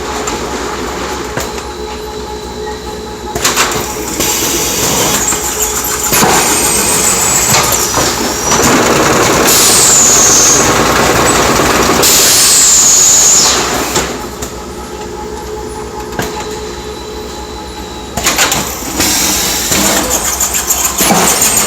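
Mushroom-production factory machinery running, a steady mechanical hum and clatter broken by several loud hissing bursts, each ending in a falling high whine.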